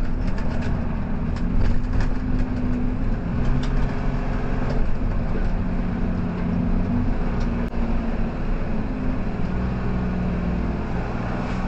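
Semi truck's engine and road noise heard from inside the cab: a steady low drone with a few light clicks and rattles.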